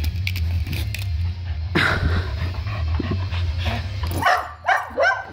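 Small remote-control toy helicopter's rotor buzzing with a steady low hum that cuts off about four seconds in, while a dog gives a few short barks, three in quick succession near the end.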